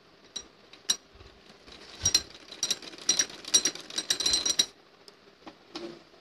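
Usha sewing machine stitching: two single clicks, then a run of rapid mechanical clatter at about three or four stitches a second for roughly two and a half seconds, stopping with a couple of last clicks near the end.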